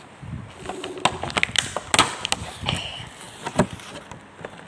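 Close-up eating sounds from a mukbang: a piece of sushi being bitten and chewed, heard as irregular sharp mouth clicks and crunches, several a second.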